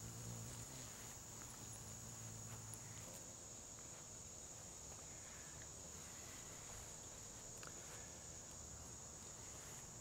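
Faint, steady outdoor insect chorus: a constant high-pitched trill of summer crickets or similar singing insects. A low hum is heard underneath for the first three seconds and then fades out.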